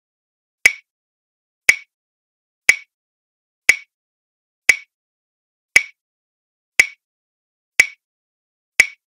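Quiz countdown timer sound effect ticking once a second, nine sharp clicks with dead silence between them, counting off the ten seconds given to answer.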